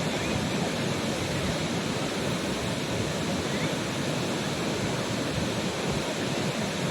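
Waterfall: a steady, unbroken rush of falling water that does not let up.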